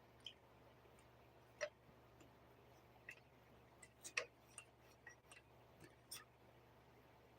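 Faint, irregular small clicks and taps of hard plastic parts being handled, about a dozen, with the loudest a little past a second and a half, around four seconds in, and about six seconds in.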